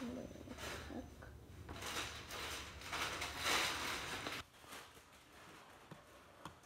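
Rustling and rubbing on the phone's microphone as the phone is handled and set down, for about four seconds, then it goes quiet.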